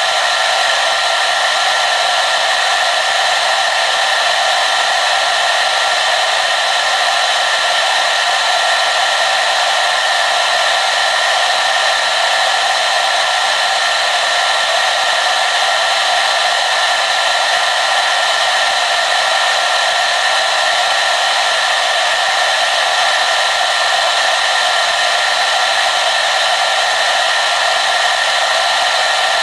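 Hair dryer running steadily: a constant airflow rush from its fan with a faint steady whine from the motor, unchanging throughout.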